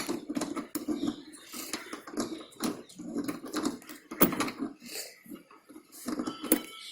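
Irregular light clicks and knocks of hard plastic being handled, with a sharp click right at the start: a Maruti Suzuki 800's air filter housing being lined up and seated.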